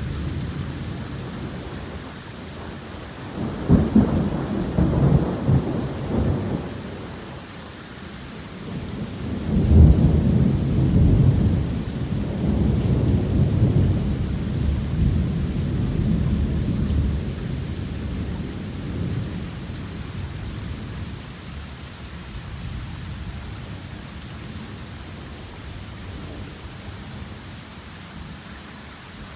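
Thunder rolling over torrential rain. A rumble comes about four seconds in, then a louder, longer roll starts near ten seconds and slowly dies away, while the rain pours steadily throughout.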